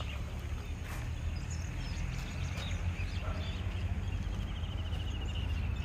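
Outdoor ambience: small birds chirping, with a rapid trill in the last couple of seconds, over a steady low rumble.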